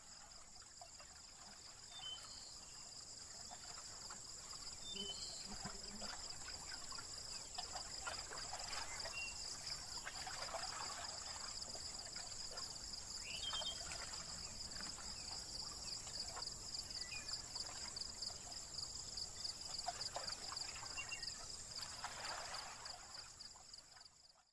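Faint crickets chirring steadily in two high, continuous trills, with a few scattered short chirps and a soft rushing noise that swells at times. It fades out near the end.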